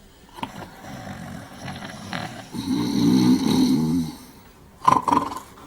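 Two men snoring in a cell. A long, rumbling snore builds to its loudest about three seconds in, followed by two short, sharp snorts near the end.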